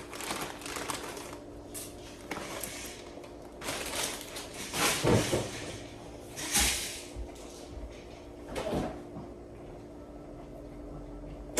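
Kitchen cupboard doors and drawers being opened and shut, several separate knocks and clatters, the loudest about five and six and a half seconds in, over a steady low hum.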